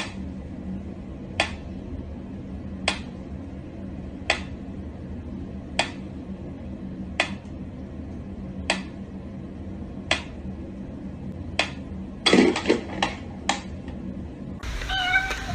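Sharp clicks or taps on something hard, evenly spaced about a second and a half apart, then a quick flurry of louder knocks near the end, over a steady low hum.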